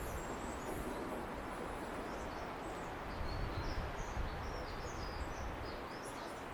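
Robin singing a thin, high warbling phrase of short notes from about two seconds in, over a steady low background rumble.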